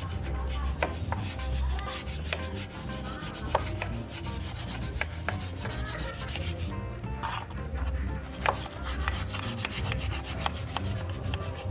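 Small bristle brush scrubbing in quick repeated strokes over a scooter's grimy engine crankcase, working in a wet cleaning solution meant to lift baked-on crust. The strokes pause briefly about seven seconds in, then resume.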